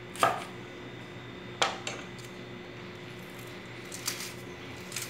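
Two sharp knocks of a cleaver on a wooden cutting board, about a second and a half apart, then light crackling of dry onion skin being peeled by hand near the end.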